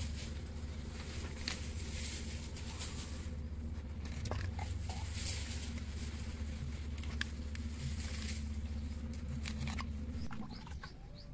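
Knife scraping scales off a small whole fish in repeated rasping strokes with light ticks, over a steady low hum that stops near the end.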